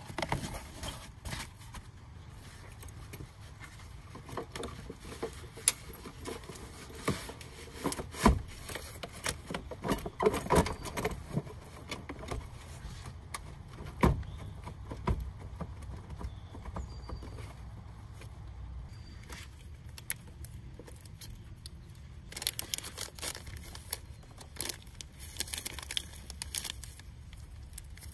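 Hands working on a car battery: irregular clicks, knocks and plastic rattles from fitting the battery insulator and the positive terminal's plastic cover. Near the end comes a rustle of a plastic packet being handled.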